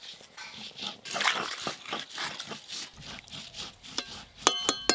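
A metal spatula knocking against the rim of a metal cooking pot of curry: a few sharp clinks that ring briefly, near the end. Before them come faint scrapes and small knocks from stirring.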